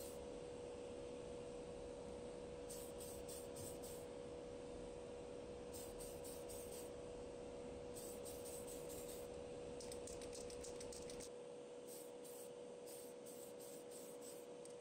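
Tamiya Gloss Clear aerosol spray can hissing in short puffs, in clusters every second or two, over the steady hum of the spray booth's extractor fan.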